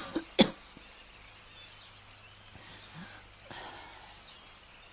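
A person coughing twice in quick succession, short and sharp, just after the start. After that only a quiet room hum remains, with a faint soft breath about three and a half seconds in.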